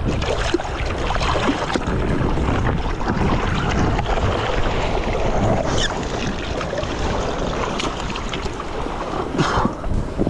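Wind buffeting the microphone over lapping, splashing water, with a few sharp knocks, the loudest near the end.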